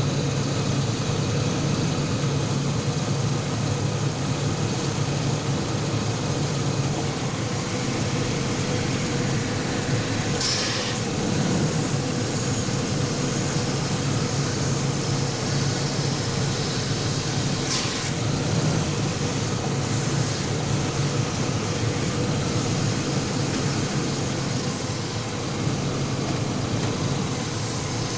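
Chevrolet S-10 Blazer running steadily, with two short sharp pops, about ten and eighteen seconds in. The pops are from the front steering linkage: a bad outer tie rod end and a worn pitman arm.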